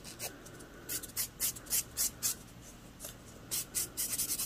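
Grey nail file rubbed lightly back and forth over a cured gel nail, a run of short scratchy strokes, buffing down a lump where debris got cured into the gel.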